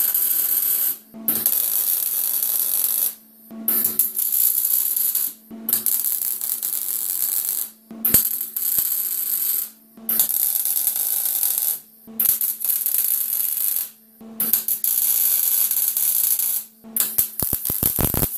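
MIG welder (Longevity MigWeld 140 running .030" steel wire under C25 gas) arc crackling as steel roll-cage tubing is stitch-welded, in about nine short runs of one to two seconds with brief pauses between them. Near the end the arc stutters in a quick series of short pops, over a steady low hum.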